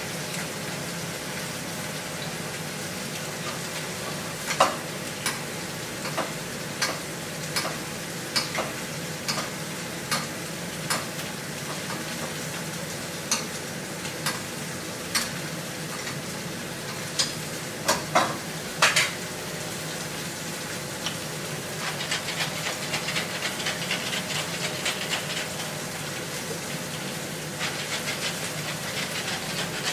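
Food sizzling steadily in a stainless steel frying pan over a gas flame, with scattered sharp clicks and taps through the first two-thirds, the loudest a little past the middle. In the last third a dense, fast crackle comes in, and near the end a pepper mill is twisted over the pan.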